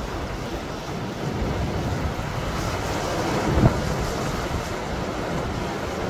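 Strong wind buffeting the microphone over rough sea surging and breaking on rocks. A sharp low thump stands out a little past halfway through.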